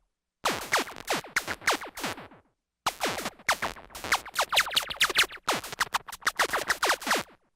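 Synthesized sci-fi laser gun firing in rapid volleys: each shot is a quick falling zap, several a second. There are three bursts, the first about two seconds long and the next two nearly back to back, separated by short silences.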